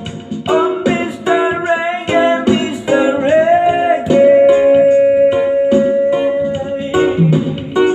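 A man singing while strumming an acoustic guitar, holding one long sung note through the middle.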